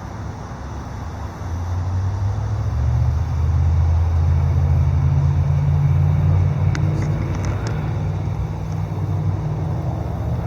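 Road traffic rumble, a deep steady drone that swells from about two seconds in as a vehicle goes by and eases off after about seven seconds.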